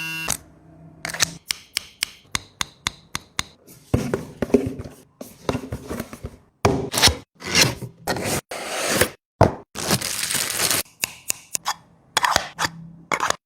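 Packaging of a compact foil shaver being handled and opened: a quick run of clicks and taps, then irregular rustling and scraping of box and wrapping, broken by abrupt cut-offs.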